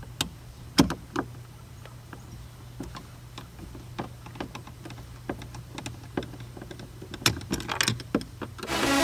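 Phillips screwdriver working on the screws in a truck's interior door-handle recess: scattered clicks and ticks of the metal tip against the screw heads and plastic door trim. Music comes in just before the end.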